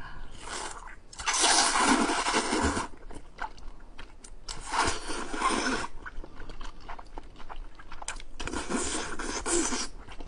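A person slurping wide Chinese glass noodles three times, each a long, loud slurp about three seconds apart, with softer wet mouth noises in between.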